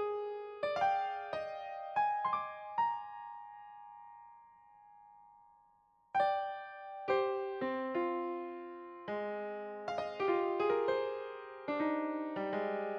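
Background piano music: a handful of struck notes that ring and fade away, then the melody picks up again about six seconds in.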